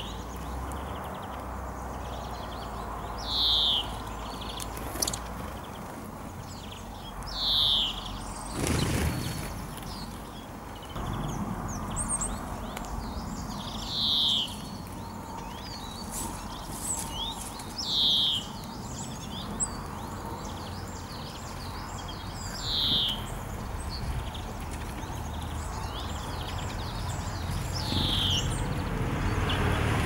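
A small songbird repeating one short falling call about every four seconds, over faint twittering. A brief rush of noise about nine seconds in.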